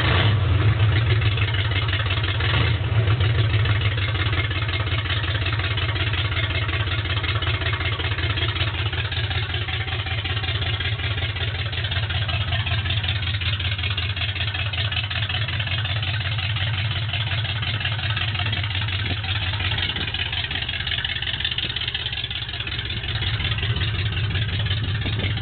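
Ford F100's 289 V8 idling loud and rough with its right exhaust pipe disconnected, running partly open-piped. It swells louder twice in the first few seconds, then settles to a steady idle.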